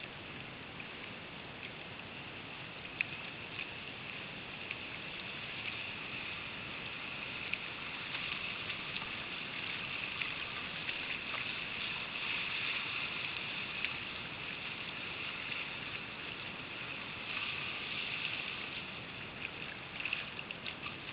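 Rain-swollen river water rushing and churning through small rapids around a kayak at water level. It swells through the middle and eases toward the end, with a few brief clicks.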